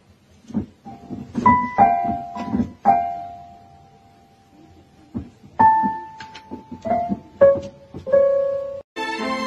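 A cat pressing the keys of a keyboard: scattered, unmusical piano notes and small clusters at irregular intervals, each ringing out and fading. Just before the end it cuts abruptly to a different, fuller piece of music.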